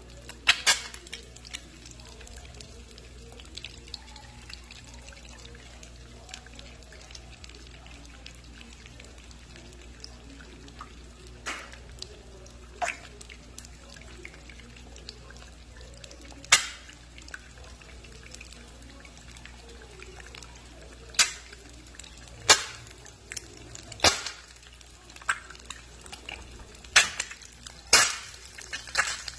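Eggs frying in hot oil in a pan, with a faint crackle and sharp pops of spattering oil at irregular moments, coming more often in the second half. A steady low hum runs underneath.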